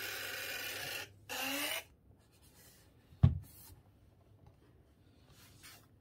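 Pricker portable photo printer giving two electronic tones as its power button is pressed, the first about a second and a half long, the second short, each starting with a quick upward slide; about three seconds in, a sharp knock as the printer is set down on the desk, the loudest sound, followed by faint handling rustle.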